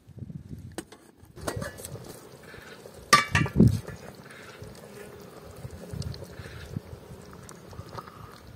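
A metal pot of stew boiling over a wood fire, with a sharp metallic clink about three seconds in, followed by a couple of dull knocks. A wooden spoon starts stirring in the pot near the end.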